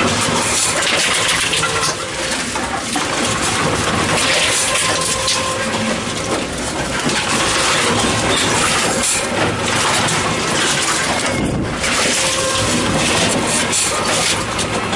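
Tomra T-63 HCp reverse vending machine running steadily as plastic bottles are fed in, with irregular clattering.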